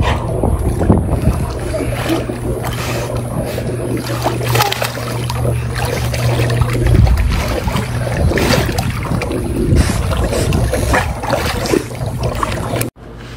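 Pool water splashing and lapping as a golden retriever paddles through it, over a steady low rumble; the sound cuts off abruptly near the end.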